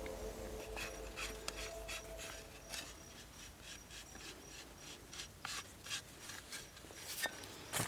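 Faint, irregular rustling and rubbing: short scrapes and clicks from camping gear being handled.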